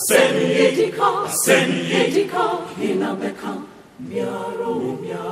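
A group of voices singing together in a chant-like choral style, with a short break just before four seconds in.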